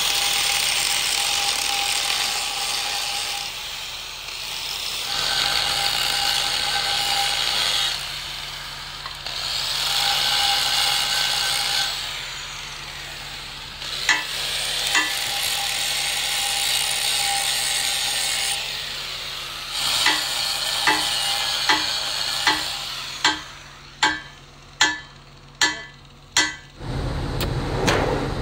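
Handheld angle grinder grinding the edge of a steel flange plate in several passes, a steady motor whine under the hiss of the disc on metal, with short pauses between passes. Near the end come a series of sharp knocks about a second apart, then the crackle of a stick-welding arc starts on the joint.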